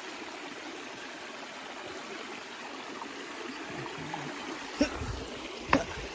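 Mountain stream flowing steadily, with two sharp knocks about a second apart near the end.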